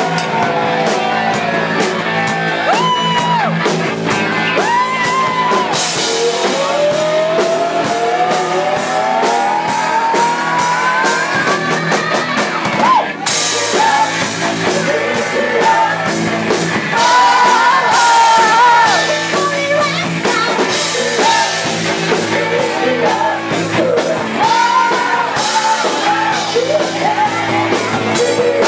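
Amateur rock band playing live: electric guitar, bass and drums with a singer, loud and steady throughout.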